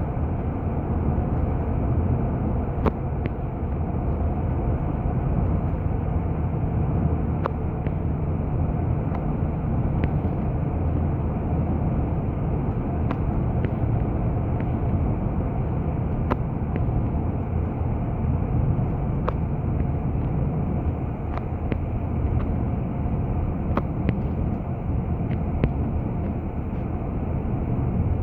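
A car driving along a highway: steady road and engine rumble, with occasional light clicks.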